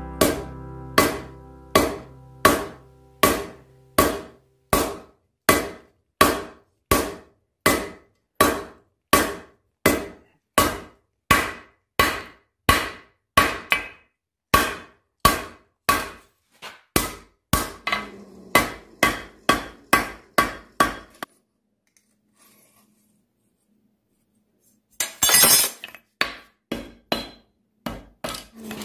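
Blacksmith's hammer striking red-hot steel on an anvil, a steady rhythm of about two ringing blows a second, drawing out the bar for a forged spider skillet. The hammering stops about two-thirds through, a short harsh rush follows after a pause, then a few more blows near the end.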